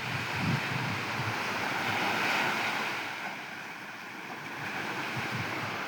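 Ocean surf washing onto a beach, one wave swelling to a peak about two seconds in and ebbing away, with light wind buffeting the microphone.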